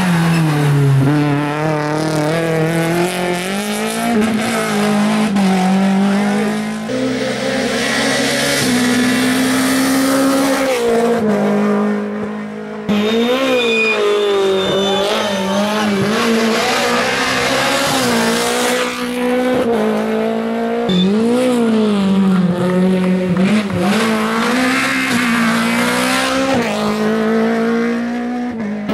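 Renault Clio rally car's four-cylinder engine at full race revs, its pitch climbing and dropping again and again through gear changes and corners.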